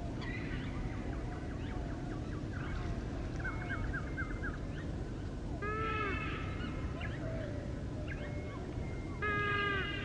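Several wetland birds calling: many short chirps, a quick run of about five notes, and two louder, lower arched calls about six and nine and a half seconds in. A steady low rumble runs underneath.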